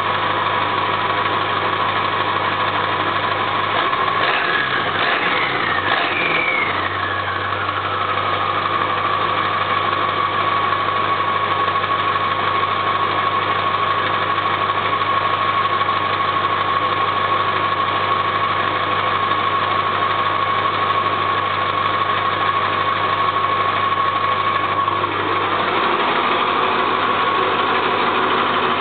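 1996 Ford F-250's 7.3-litre Power Stroke turbo diesel V8 idling, heard at the exhaust tip, with a steady high-pitched whine over the engine note. A few seconds in, a whistle slides down in pitch and settles back into the whine.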